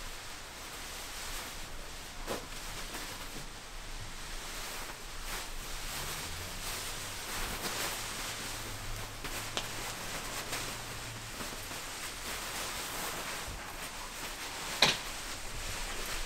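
German wirehaired pointer puppies and their mother scuffling in play on a padded blanket: rustling and scrabbling, with a single sharp click near the end.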